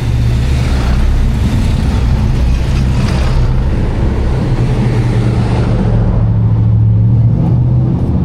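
Street traffic close by: a motor vehicle's engine running with a steady low hum, under a wash of road noise that thins out about six seconds in.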